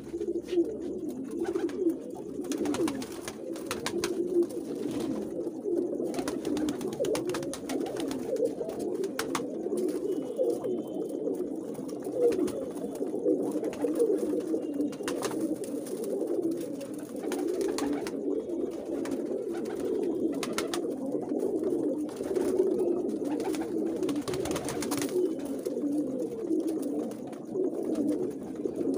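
A flock of domestic pigeons cooing continuously, many birds overlapping at once, with occasional short clicks.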